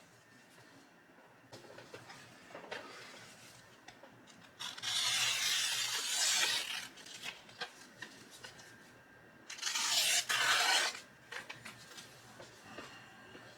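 Steel knife blade being rubbed by hand against an abrasive, as in edge and chip repair: two long rubbing strokes, the first about two seconds and the second about a second and a half, with light clicks and taps between them.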